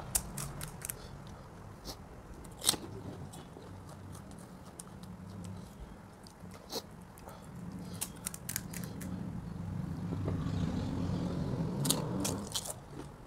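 Crisp, hollow pani puri shells cracking in sharp, scattered snaps as they are broken open, then crunching as one is bitten and chewed near the end.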